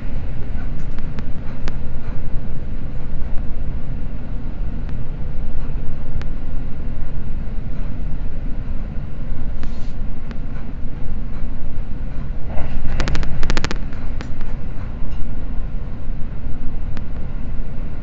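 Seibu Red Arrow limited express train running at speed, heard inside the passenger cabin: a steady low rumble of wheels on track, with a short burst of rapid clicking about thirteen seconds in.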